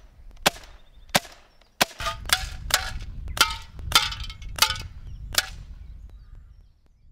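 Silenced Umarex Beretta CX4 Storm XT CO2 semi-automatic air rifle firing about ten quick shots, roughly two a second, with pellets clanging off tin cans. A low rumble runs under the later shots, and the sound cuts off near the end.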